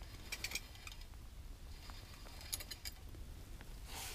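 Faint clicks and rustles of hands handling fishing line over a low steady hum, with a few clicks about half a second in and again around two and a half seconds. A soft hiss comes up near the end.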